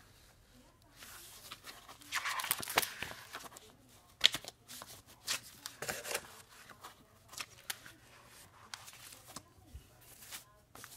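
Plastic folder being handled: irregular rustling, scraping and crinkling of its plastic, with a few sharp clicks, the longest stretch of rustling about two seconds in.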